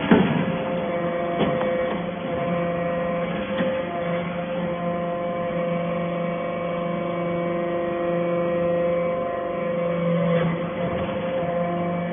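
Hydraulic metal-chip briquetting machine running: a steady hum from its hydraulic pump and motor, with a lower hum that swells and fades every few seconds. A few sharp metal clanks come as briquettes are pressed and pushed out along the discharge chute, the loudest right at the start.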